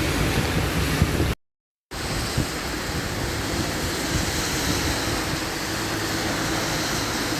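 Heavy rain falling as a steady hiss. For the first second or so a car's engine runs under it, then the sound drops out for half a second at a cut and comes back as rain alone.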